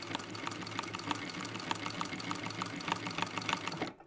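Industrial sewing machine stitching through coiled cord: a steady motor hum with about four needle clicks a second as it sews a tight finishing stitch around a basket's rim. It stops abruptly just before the end.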